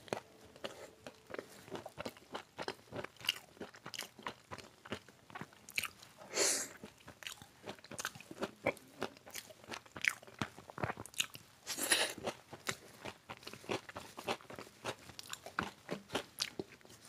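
Close-up chewing and crunching of fried vegetable pakora in the mouth: many small crisp crunches throughout, with louder bursts of crunching about six and twelve seconds in.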